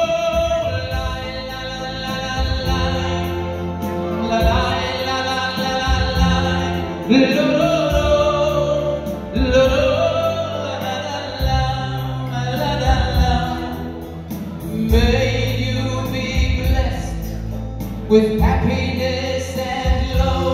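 A male singer's live amplified vocal, with long held notes that slide between pitches, over an instrumental backing with a steady bass line, heard through a banquet hall's PA system.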